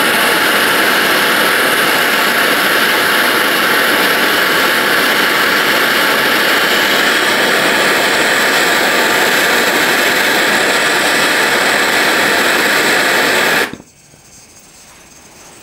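Handheld gas torch flame hissing steadily as it heats a welded carbon-steel bandsaw blade joint to red heat to anneal it. The hiss cuts off suddenly near the end when the torch is shut off.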